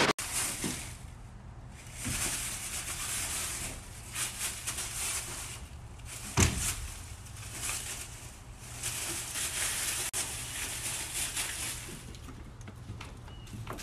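A brief burst of TV-style static, then raccoons scuffling through dry leaves, rustling in repeated bursts over a low steady hum. There is one sharp knock about six seconds in.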